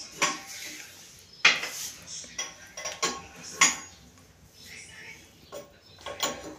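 Metal wrench clinking against the hose nut of a two-way angle valve as a flexible toilet supply hose is tightened: several sharp metallic clinks at uneven intervals.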